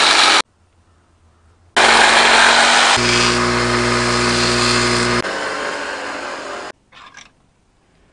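Bench grinder grinding a small piece of steel: loud, hissing bursts that stop abruptly, one cut off about half a second in, the other starting near two seconds and lasting about five seconds, with the motor's steady hum showing through in the middle of it. A few faint clicks come near the end.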